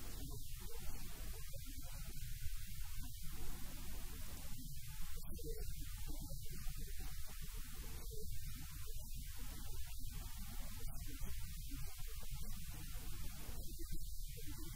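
Steady low electrical mains hum on the sound line, with faint, indistinct mid-range sounds coming and going over it.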